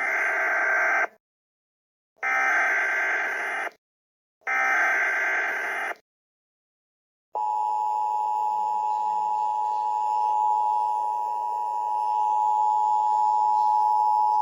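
Emergency Alert System alert tones: three short bursts of data-signal buzz about a second apart (the SAME header), then, from about seven seconds in, the steady two-tone attention signal.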